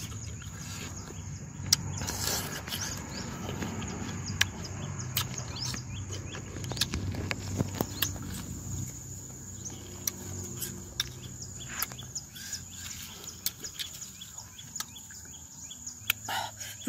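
A person chewing bilimbi fruit, with irregular wet clicks of the chewing. Birds chirp and a steady high insect drone runs behind.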